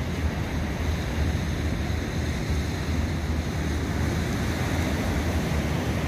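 Steady wind rumbling on the microphone over the continuous wash of sea surf on a beach.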